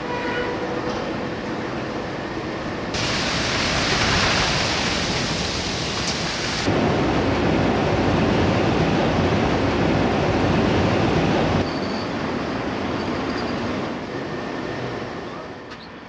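Winery grape crusher-destemmer running as red grapes are fed through it: a dense, steady mechanical noise that changes abruptly several times, loudest from about seven to twelve seconds in.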